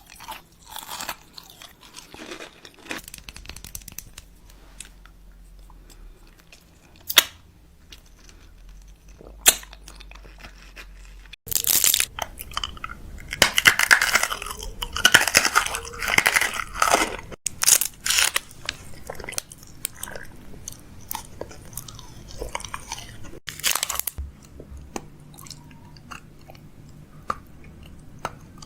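Close-miked crunching and chewing of crunchy food, with sharp crackling bites. The sound comes in several separate segments, and the busiest, loudest stretch is around the middle.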